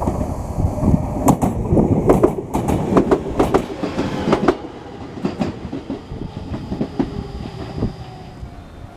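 Enshu Railway 2000-series electric train passing, its wheels clacking in quick strokes over the rail joints for about four and a half seconds, then the running noise drops to a quieter rumble.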